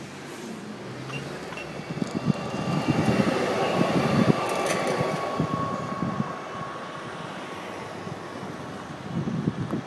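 A city tram passing close alongside a moving car: the sound swells over a couple of seconds and fades again, with a steady high whine at its loudest. Underneath run road noise and wind buffeting on the microphone.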